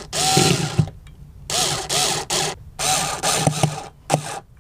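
A cordless drill-driver driving screws into wood, run in about five short bursts, its motor whine rising and falling with each one.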